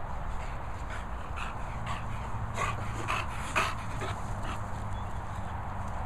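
A dog making a quick run of short sounds while at play, densest and loudest about three seconds in, over a steady low rumble.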